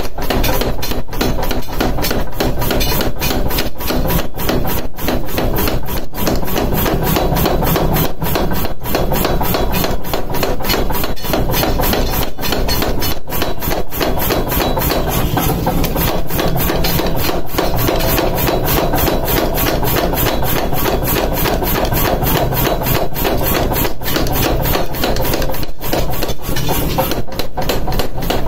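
Mechanical power hammer rapidly and steadily pounding a red-hot blank of truck leaf-spring steel on the anvil, forging it into a cleaver blade. The blows come in an even, fast rhythm over the machine's low running rumble.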